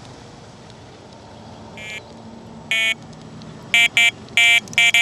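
Electronic carp bite alarm beeping: a few single beeps that come quicker and quicker, running into a rapid stream of beeps near the end, the sign of line being pulled through the alarm as a fish takes the bait.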